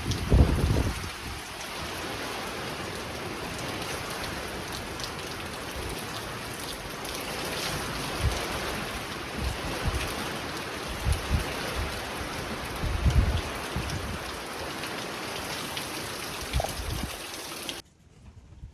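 Heavy tropical-storm rain pouring down steadily, with occasional low buffeting from wind gusts hitting the microphone. The sound cuts off suddenly near the end.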